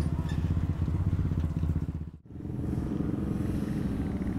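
Pickup truck engine running hard under load as it climbs a sand dune, a dense steady drone. The sound cuts out for a split second about two seconds in, then carries on.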